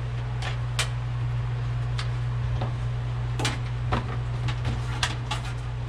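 Scattered light clicks and knocks of wires and small parts being handled while routing vehicle wiring, over a steady low hum.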